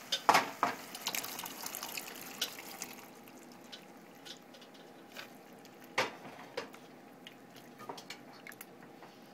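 Cooked chickpeas and their liquid poured into a pan of hot, bubbling curry paste: a loud splash and dense crackling for the first few seconds. Then a spatula stirring them in, with scattered clicks and a sharp knock about six seconds in.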